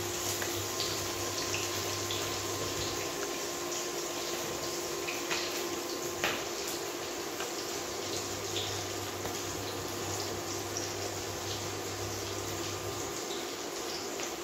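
Oil sizzling in a steel kadhai on a gas burner: a steady hiss with scattered small pops and a couple of louder crackles about five and six seconds in.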